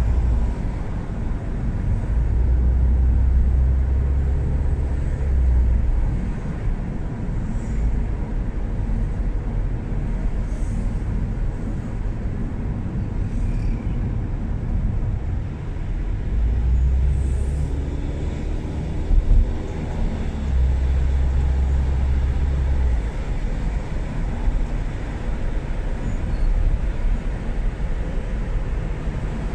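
A car driving through city traffic: a steady low engine and road rumble that swells and eases as it moves, with a brief louder thump a little past the middle.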